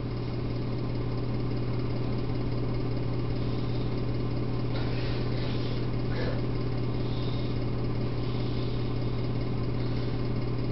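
Steady low hum with overtones, with faint rustling about five seconds in as a hand puppet is handled.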